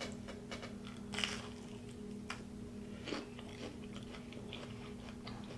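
Close-miked eating: crunchy bites and chewing of a fried onion ring, with the loudest crunch about a second in and another about three seconds in.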